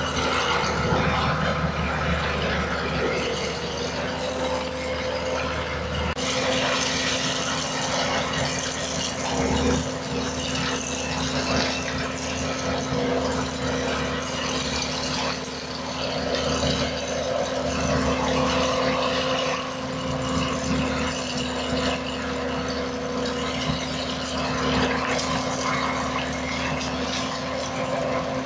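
Skid steer engine running steadily under load, with continuous metallic rattling and clanking from the machine and its tree and post puller attachment as it works.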